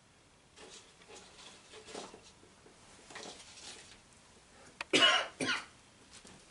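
A few seconds of faint soft noises, then a man coughs twice in quick succession about five seconds in.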